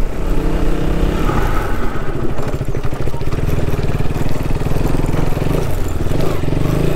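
KTM Duke's single-cylinder engine running as the motorcycle is ridden over a rough off-road trail, its firing pulses steady with the throttle rising and easing a little.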